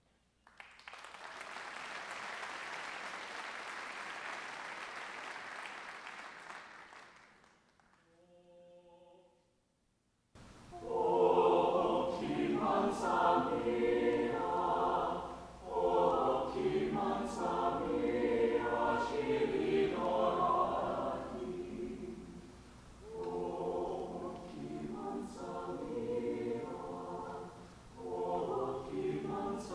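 Audience applause lasting several seconds and fading out, then a brief faint held note. After that, a mixed chamber choir sings an Italian Renaissance piece a cappella, phrase by phrase with short breaks.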